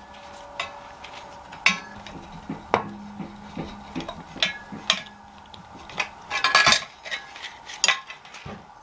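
Wrenches, bolts and engine parts clinking and clanking on metal while the water pump is taken off a Ford 226 straight-six. About a dozen sharp clanks, some ringing briefly, with a busier cluster a little past halfway.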